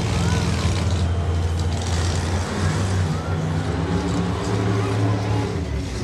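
Monster truck's supercharged V8 engine running as the truck drives and turns, its note rising and falling several times with the throttle.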